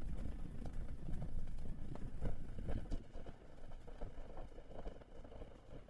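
Motorcycle on the move: a low engine and road rumble with scattered knocks and rattles, quieter in the second half.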